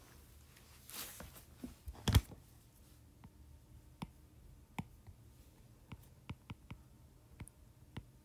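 Stylus tip tapping and ticking on an iPad's glass screen while writing and picking a colour in a notes app: a scattering of short, sharp clicks, with one louder knock about two seconds in.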